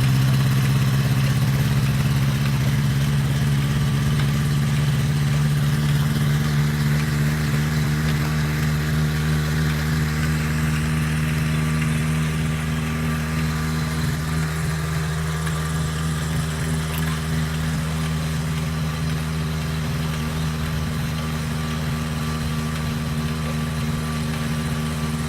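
Small brush-cutter engine running at a steady speed, a constant droning hum that eases off slightly in loudness over the second half.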